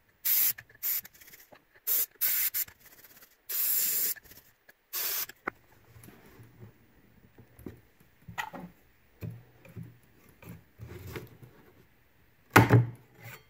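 Short hissing blasts of canned compressed air sprayed under a hot-glued wood slice to chill the glue until it turns brittle: about eight bursts in the first five seconds, one longer near four seconds. Then faint scraping, and near the end a sharp crack as a spatula pries the slice free of the glue.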